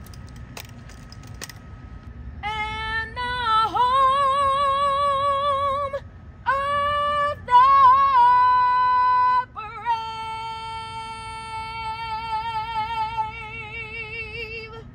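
A woman singing the national anthem solo, unaccompanied, in long held notes with vibrato. The phrases start about two and a half seconds in, pause briefly twice, and end on a long note that wavers more toward its close.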